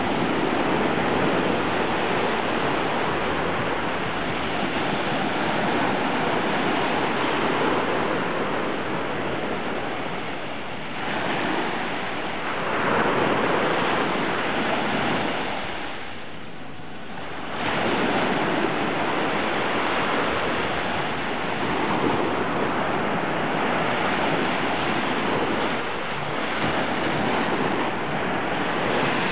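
Small Black Sea waves breaking and washing up on a sandy shore: a steady rush of surf that swells and eases, dropping briefly quieter about two-thirds of the way through.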